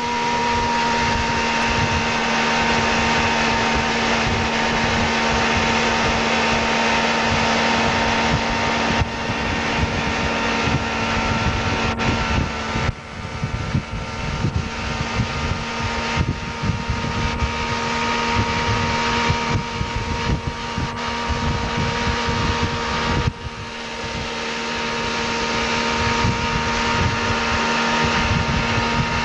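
Tow boat's engine running at a steady speed, a constant hum with wind and rushing water noise over it; the level dips briefly twice.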